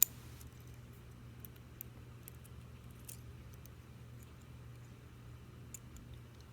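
Small hand-handling clicks of a steel finishing-nail bolt being fitted onto a toothpick crossbow: one sharp click at the start, then a few faint light taps, over a steady low hum.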